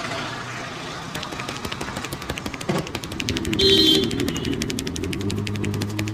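Rapid, rhythmic slaps of a barber's hands on a customer's head in a percussive head massage: sharp strikes that quicken to about ten a second. A short, high horn-like toot cuts in about halfway through.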